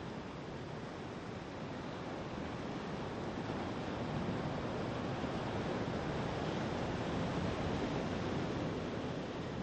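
Steady wind noise with no distinct events, growing a little louder about three seconds in.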